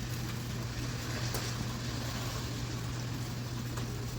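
Steady low hum under an even background hiss, with a few faint clicks.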